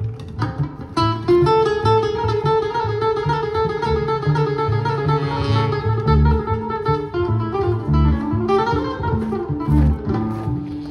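Live acoustic jazz trio playing: acoustic guitar and plucked upright bass with saxophone. Long melody notes are held over a steady plucked bass line.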